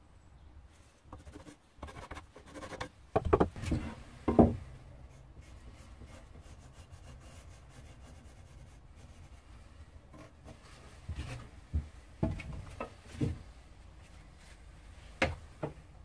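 Wooden pieces being handled on a workbench: a cluster of dull knocks and rubs about three to four and a half seconds in, more around eleven to thirteen seconds, and a sharp knock near the end. Between them, faint scratching of a pencil marking out an oak board.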